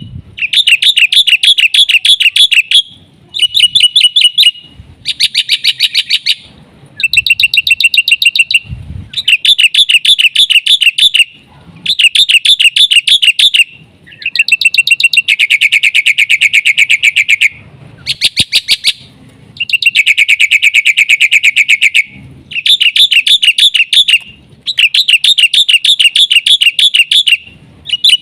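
Black-winged myna (jalak putih) singing: loud, rapid, evenly repeated chirping notes in phrases of one to three seconds, each broken by a brief pause.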